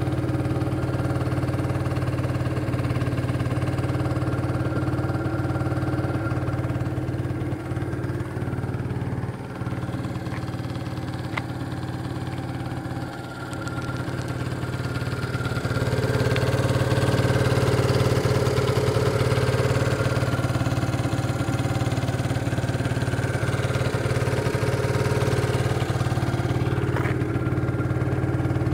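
Idling 50cc engine of an ATU Explorer Speed 50 scooter running steadily, a little louder for several seconds in the middle.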